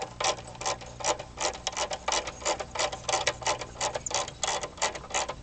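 Ratcheting 8 mm gear wrench clicking quickly, about five or six clicks a second, as it backs a nut off the relay control module.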